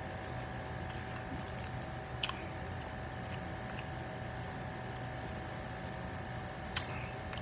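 A man drinking from a plastic bottle, swallowing, with two short sharp clicks, one about two seconds in and one near the end, over a steady room hum.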